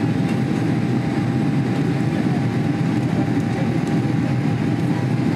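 Steady cabin noise of a jet airliner in flight, heard from a window seat: an even low rumble of engines and airflow with a thin steady whine above it.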